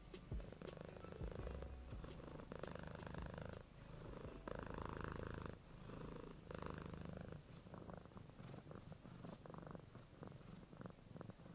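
Kitten purring faintly, the purr swelling and easing with its breaths about once a second.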